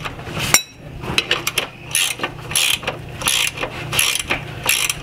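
Ratchet wrench clicking in repeated strokes, one burst of clicks about every half second to second, as a trailing-arm mounting bolt is backed off. A steady low hum sits beneath.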